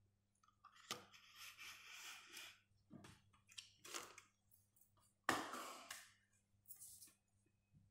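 A sheet of paper rustling and sliding on a tabletop as it is handled and repositioned, in several short crisp bursts, the loudest starting sharply about five seconds in, over a faint steady electrical hum.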